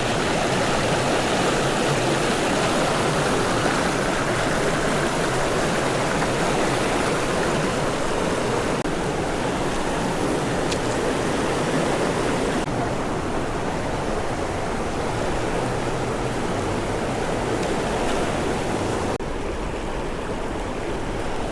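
River current flowing steadily through a run, a constant loud water noise. The high hiss dulls a little about two-thirds of the way in and again near the end.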